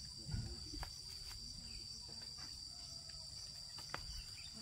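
Steady high-pitched insect chorus droning on one level, with a soft low thump about a third of a second in and a couple of sharp clicks later on.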